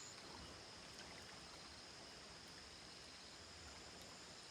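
Near silence: faint outdoor background hiss by a river, with a thin, steady high-pitched tone.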